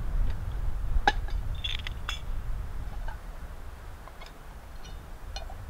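Several light clinks and taps of a metal camp pot being handled, the loudest about a second in and a cluster around two seconds, over a low rumble of wind on the microphone.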